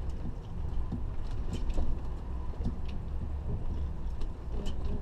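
Class A motorhome driving slowly, heard from inside the cab as a steady low rumble with a few light clicks and rattles.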